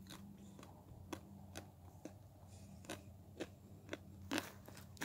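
Faint footsteps crunching on dry desert dirt and brush, about two steps a second.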